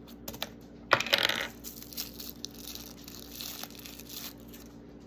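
Small plastic toy pieces being handled as a miniature toy capsule is unwrapped: a few light clicks, then a sharper click with a brief ring about a second in as a small hard piece lands on the wooden table. After that comes light crinkling of a thin plastic wrapper being peeled.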